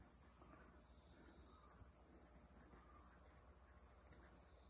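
Steady high-pitched chorus of insects, growing fuller and louder about halfway through.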